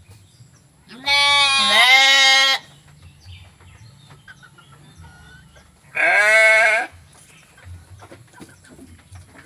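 Two loud bleats from sheep or goats at feeding time. The first comes about a second in and lasts well over a second with a wavering pitch. The second is shorter and comes about six seconds in.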